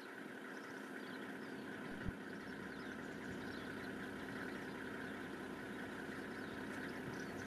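Safari vehicle's engine idling steadily, with a single thump about two seconds in.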